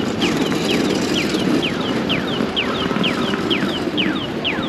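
Audible pedestrian-crossing signal chirping: a rapid, evenly repeating run of falling chirps, long and short in turn, about four a second, over steady street noise.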